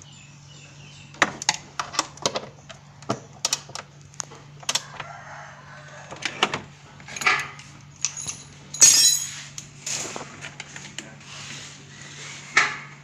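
Hand ratchet with a 10 mm socket doing up the timing-belt cover bolts: irregular metallic clicks and knocks of tool on metal, the loudest about nine seconds in.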